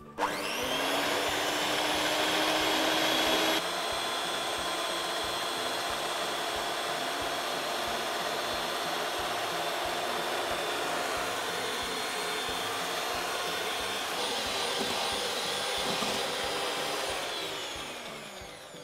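Electric hand mixer whipping egg whites in a stainless steel bowl: the motor spins up as it switches on, then runs at a steady whine while the egg whites are beaten to light and fluffy. It slows down and stops near the end.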